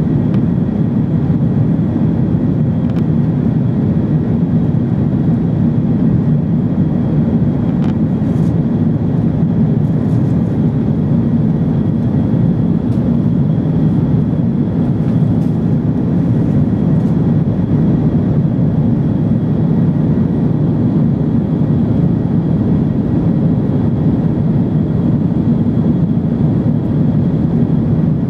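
Cabin noise inside an Airbus A330-200 climbing out after takeoff: the steady low roar of its General Electric CF6 turbofans and the rushing air, with a faint steady high whine.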